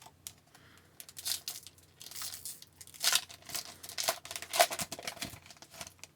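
Foil wrapper of an Upper Deck hockey card pack being torn open and crinkled: a run of irregular crackles and rips, loudest near the middle.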